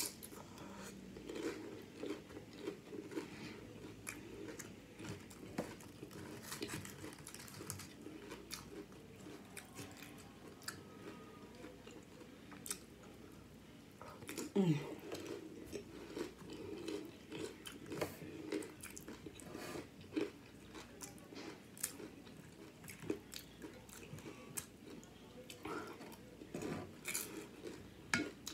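Close-up chewing and crunching of loaded nachos made with Flamin' Hot Doritos tortilla chips, with irregular crisp crunches and wet mouth sounds. About halfway through there is a short falling hum from the eater's voice.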